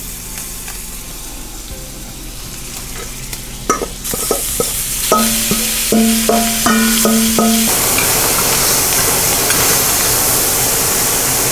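Chicken hearts frying in butter in a pan, sizzling steadily, with a few utensil clicks as they are stirred; about four seconds in the sizzle turns much louder and brighter. A short run of musical notes plays over it midway.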